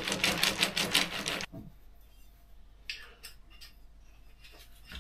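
Clams cooking in a frying pan, a dense crackling sizzle that cuts off suddenly after about a second and a half. Then only a few faint clicks.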